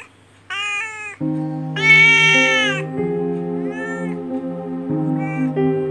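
A kitten meowing four times, the longest and loudest call about two seconds in and the others shorter and fainter, over soft background music with sustained chords that comes in about a second in.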